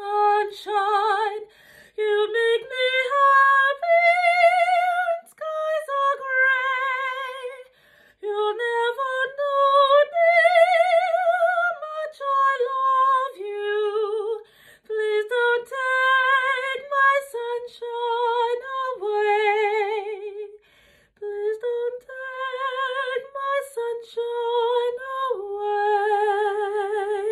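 A solo female soprano singing unaccompanied, in long held notes with a wide vibrato, climbing to her highest notes about four seconds in and again about ten seconds in, and closing on a long held lower note.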